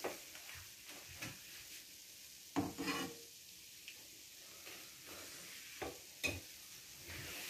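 Oil sizzling gently around ring donuts slow-frying in a frying pan over a low flame, with several sharp knocks of a metal slotted spoon against the pan, loudest about three seconds in and again near six seconds.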